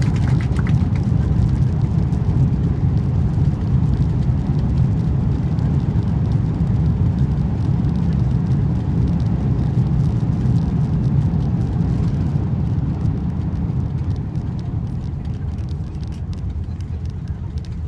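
Low, steady rumble of an Airbus A330-200 rolling down the runway after touchdown, heard from inside the cabin. It eases off over the last few seconds as the aircraft slows.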